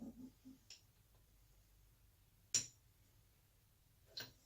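A few light, sharp clicks of tools and small metal carburettor parts being handled, spaced out over several seconds.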